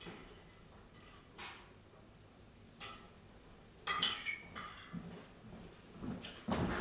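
Cutlery clinking against a plate at a meal: a few separate clinks with quiet between them, the loudest a short cluster with a brief ring about four seconds in.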